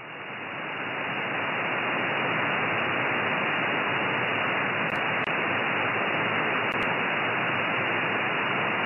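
Hiss from an SSB receiver, an RTL-SDR with an MMDS down-converter, tuned to a clear 2320 MHz channel in the pause between a station's CQ calls. The hiss swells up over the first two seconds as the receiver's slow AGC recovers after the strong signal drops out, then holds steady and loud.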